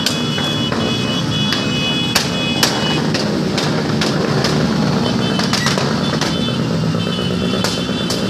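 Many motorcycle engines running together as a group rides slowly through a street. Sharp clicks come and go, and a high held tone sounds twice, for about three seconds each time.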